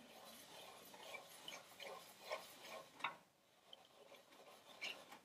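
Near silence with faint, irregular small clicks and rubbing, a few a second, with slightly louder clicks about two, three and five seconds in.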